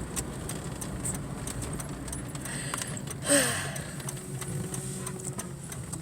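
Steady car engine and road rumble inside the cabin, with light metallic jingling clicks scattered through it and a brief falling whine about three seconds in.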